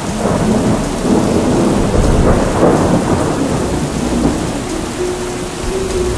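A loud, rumbling roar with rushing noise that starts suddenly and eases off near the end.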